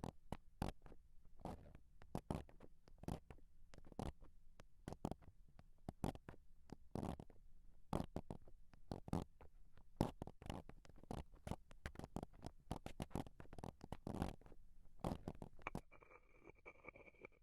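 Wooden ASMR triggers, a wooden ball and a wooden spoon, scraping and grinding close against the microphone in quick, irregular strokes. The strokes stop a little over a second before the end, leaving a faint steady tone.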